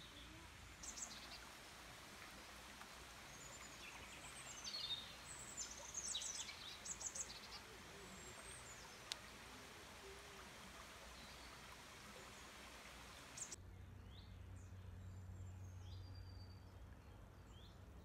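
Woodland birds chirping and calling: a run of short, high calls over a steady background hiss. About thirteen seconds in, the sound cuts to a quieter background with a low hum and only a few faint calls.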